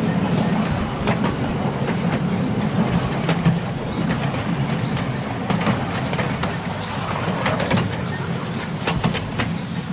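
7¼-inch gauge miniature railway train running along the track, heard from one of its open passenger cars: a steady drone from the diesel locomotive, with irregular clicks from the wheels over the rail joints.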